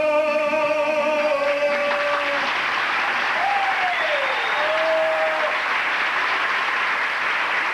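A male singer holds the long final note of a song into a microphone, ending about two and a half seconds in; audience applause takes over, with a couple of rising-and-falling shouts over it, and the sound cuts off suddenly at the end.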